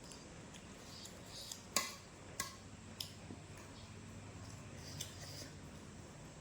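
A person eating close to the microphone: faint chewing and mouth noises, with four sharp clicks spread through.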